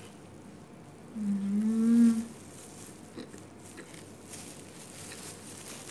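A woman's closed-mouth hummed "mmm" of enjoyment while chewing a mouthful of burger. It comes about a second in, lasts about a second and rises slightly in pitch, with quiet chewing around it.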